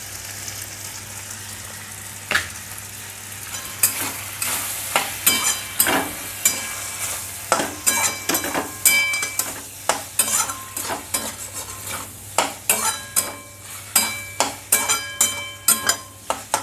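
Pasta and sauce frying in oil in a metal wok, sizzling steadily. From about four seconds in, a metal spoon stirs it, scraping and clinking against the pan with many short ringing knocks.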